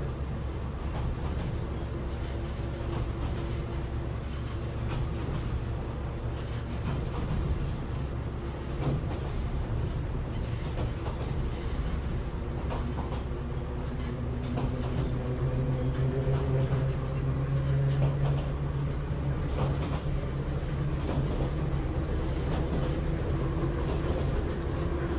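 Running sound inside a Kanbara Railway Moha 31 electric railcar under way: a steady rumble of wheels on the track with scattered rail-joint clicks. A low hum swells in the second half and is loudest a few seconds before the end.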